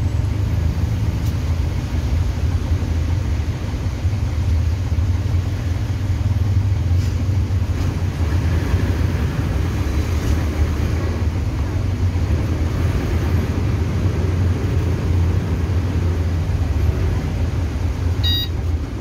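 City bus engine running steadily as a loud low hum, heard from inside the cabin while the bus creeps along in slow traffic.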